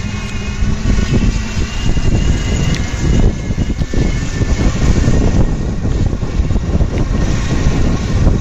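Wind rumbling on the microphone over the steady noise of a moving vehicle on a street. A faint high whine runs through the first few seconds.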